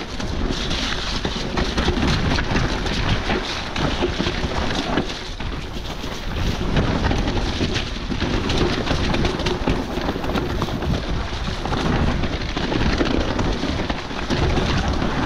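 Electric mountain bike descending a wet, muddy woodland trail: tyres churning and splashing through mud and water and the bike rattling with many short clicks over roots and bumps, with wind buffeting the camera microphone.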